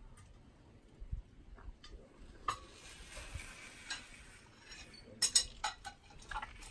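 An African elephant's trunk dragging and rubbing over a tent's canvas roof: rustling and scraping, with scattered sharp clicks and knocks. The loudest is a quick cluster of clicks about five seconds in.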